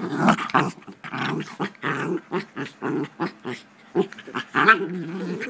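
Puppies growling in short, rough bursts while play-fighting, close to the microphone, with quick clicks between the growls.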